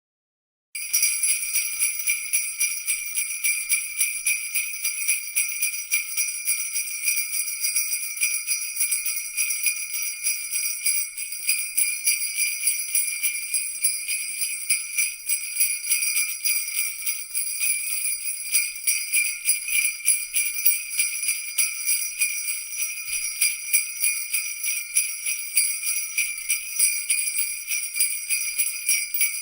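Jingle bells shaken continuously, a dense, steady jingling with bright ringing tones, starting about a second in.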